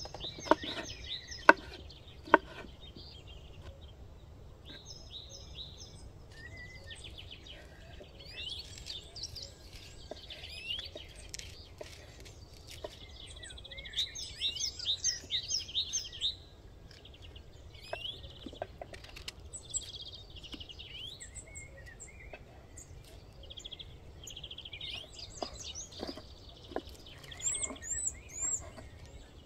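Songbirds chirping and singing. A knife chops sharply on a wooden cutting board a few times at the start and once or twice later.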